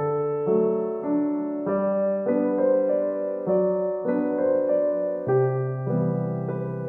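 Background piano music: gentle keyboard notes and chords, changing about every half second.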